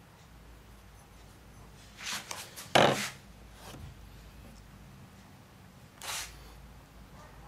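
A small flashback arrestor with brass fittings handled and set down on a tabletop: a few light clicks, then a knock about three seconds in. A short rustle of handling follows a few seconds later.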